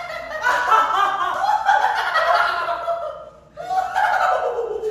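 A group of young men laughing together, loudly, with a short break about three seconds in before the laughter picks up again.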